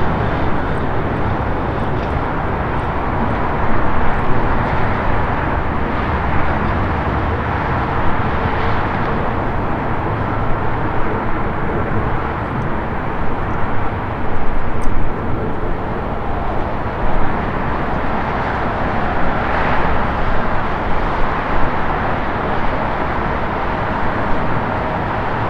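Jet engines of a taxiing Airbus A320neo airliner at low thrust, heard as a steady rushing noise with small swells.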